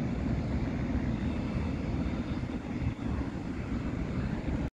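Boeing 737-700's CFM56-7B turbofans at takeoff thrust: a steady, loud jet rumble with a hiss above it as the airliner rolls and lifts off. It cuts off abruptly just before the end.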